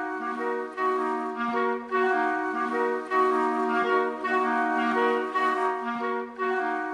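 Instrumental music: several held notes sounding together, moving in a melody with chords beneath.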